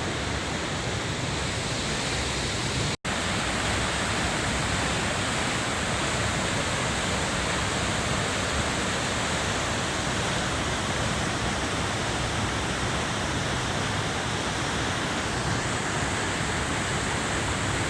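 Waterfall rushing with a steady, even roar of falling water. The sound drops out for an instant about three seconds in.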